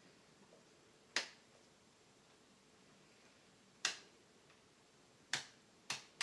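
Four sharp single clicks, irregularly spaced, each dying away quickly, with another at the very end; no continuity beep is heard.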